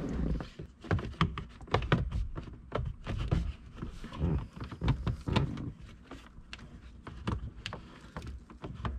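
Plastic clicks, knocks and rattles of the cabin air filter and its cover being slid back in and pushed into place behind the glove box opening, in a quick irregular run with some low thuds.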